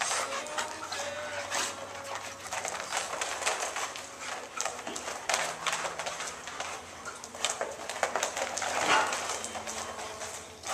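A group of dogs playing rough-and-tumble on a rubber floor: paws and claws scrabbling and clicking as they run and wrestle, with dog vocal sounds mixed in, a drawn-out one in the first couple of seconds and a louder one about nine seconds in.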